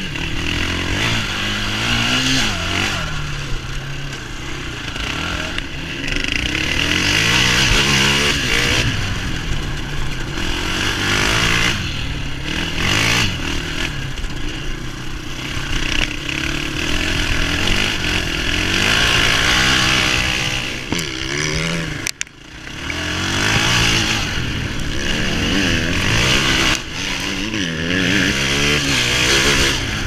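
KTM quad's single-cylinder four-stroke engine revving hard under riding, its pitch climbing and falling again and again through throttle and gear changes. About 22 seconds in the sound drops out briefly before picking up again.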